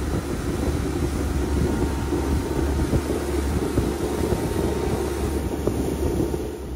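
Honda BF15 four-stroke outboard motor running steadily, driving an inflatable boat across open water, mixed with a steady rush of water and air.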